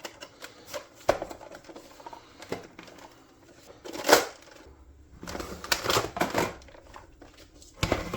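Irregular clicks and knocks of objects being handled. The sharpest is about four seconds in, and a cluster comes around six seconds.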